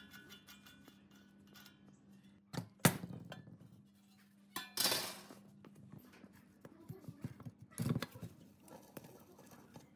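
Metal clinks and knocks from dismantling an old exhaust fan: the rusty steel blade assembly is worked off the motor shaft and a tool is set against the motor casing. A sharp knock about three seconds in is the loudest, then a short scraping rattle about five seconds in and another knock near eight seconds.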